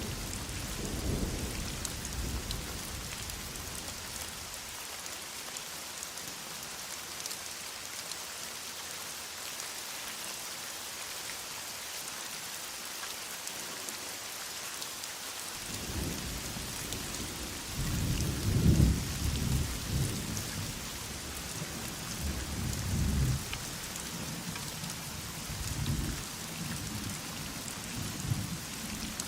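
Heavy rain falling steadily, with rolls of thunder rumbling at the start and again through the second half, loudest about two-thirds of the way in.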